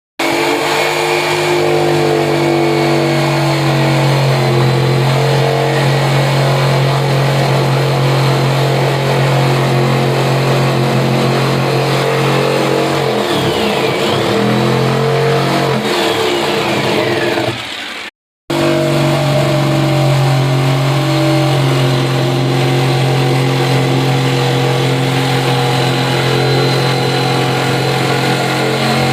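Electric jigsaw running at steady speed as its blade cuts through wood: a constant motor hum with a rasping cutting noise over it. Past the middle the pitch wavers unsteadily for a few seconds, then the sound drops out abruptly and comes back at the same steady pitch.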